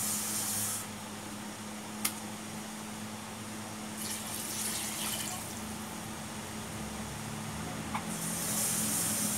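Water poured from a plastic cup into a large metal pot of chicken, a splashing pour about four seconds in lasting a second or so. A steady low hum runs underneath, with a steady hiss at the start and again near the end, and a sharp click about two seconds in.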